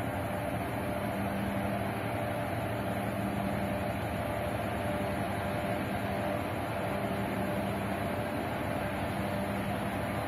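Steady mechanical hum of a large container ship's diesel engines and machinery as it passes close by. A low tone in the hum comes and goes every second or two.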